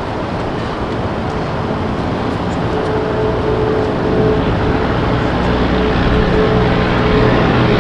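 Steady outdoor rumble of distant traffic and machinery, with a low hum and a faint steady tone, growing slightly louder over the last few seconds.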